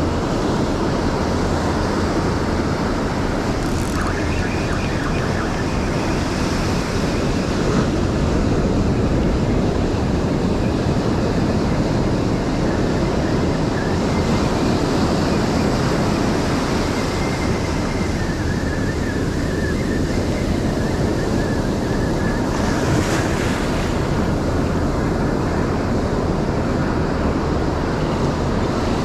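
Ocean surf washing onto a beach, with wind blowing across the microphone.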